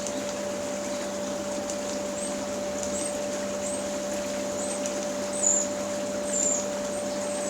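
Canadian Spa River Rapids hot tub main pump running with a steady hum, muffled inside a DIY soundproofing box, with water bubbling. A series of short high chirps starts about two seconds in.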